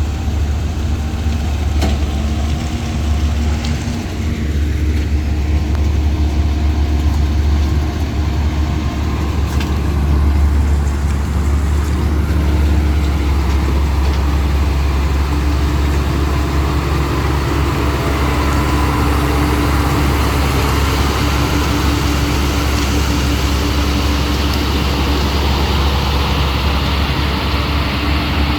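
Heavy diesel engine of earthmoving machinery running steadily with a deep rumble. About halfway through, a rougher rushing noise builds over it.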